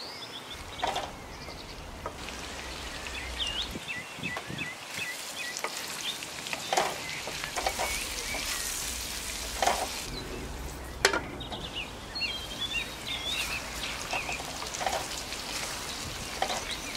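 Cut green beans and potato strips sizzling in oil in a wok as they are stir-fried, with a wooden spatula scraping and knocking against the pan now and then.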